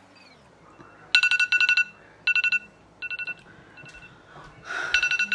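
A smartphone timer alarm going off, signalling that the timer has run out. It plays short runs of rapid electronic beeps, about one run a second, starting about a second in, with some runs fainter than others.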